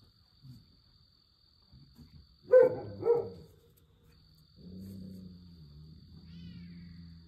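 Nigerian Dwarf goats calling: two loud, short bleats about half a second apart, then a long, low-pitched murmuring call near the end. Crickets chirp steadily behind them.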